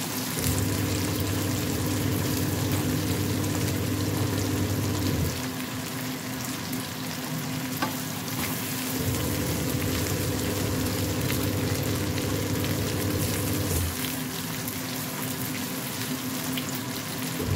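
Chicken strips sizzling in oil in a frying pan, stirred and scraped with a wooden spatula. A low steady hum runs underneath and cuts in and out twice.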